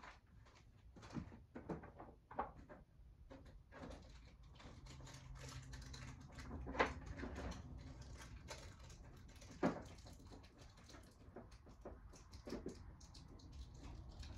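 An alarm clock and its packaging being handled: faint, scattered clicks and knocks, with two louder knocks about seven and ten seconds in.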